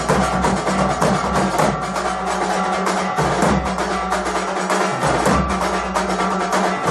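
Temple aarti music: drums and other percussion struck fast and without a break, over steady ringing tones.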